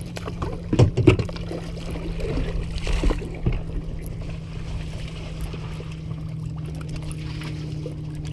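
A hooked striped bass splashing at the surface as it is reeled up to the boat, with two sharp knocks about a second in, over a steady low hum.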